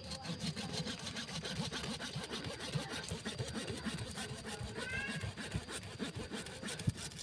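Small hand saw cutting through a branch of a Taiwan waru bonsai in quick back-and-forth strokes.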